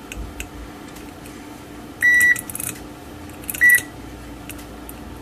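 Aneng AN870 digital multimeter's continuity buzzer beeping twice, a short beep and then a shorter one, each time the probes close a connection on the circuit board. Faint clicks of the probe tips tapping on the pads come between the beeps.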